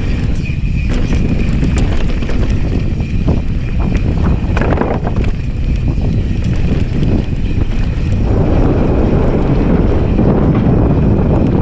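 Mountain bike descending a dirt trail at speed: wind buffeting the microphone, with tyres rolling over dirt and frequent clicks and rattles from the bike over bumps.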